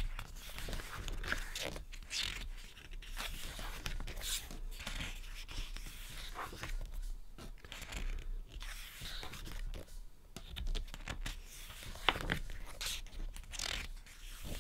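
Pages of a large photobook being turned and handled: irregular soft rustles and scrapes of paper sliding under the fingers.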